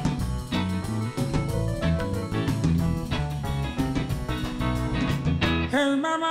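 Live band playing an instrumental passage with drum kit, bass guitar, electric guitars and keyboard. Near the end the band breaks off and the singer's voice comes in alone.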